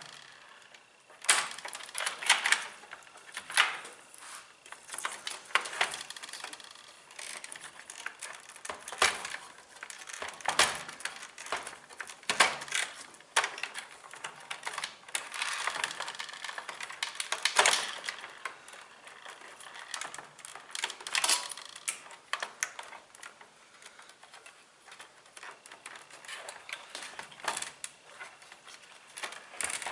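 Irregular clicking and rattling of plastic tabs, clips and metal parts being handled and pried apart while a top-load washer is dismantled by hand, several sharp clicks a second in uneven clusters.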